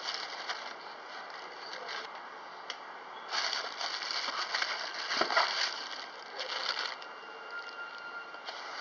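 Clear plastic bag crinkling and a cardboard box rustling as something wrapped is handled and lifted out, with a louder run of crinkling about three to six seconds in.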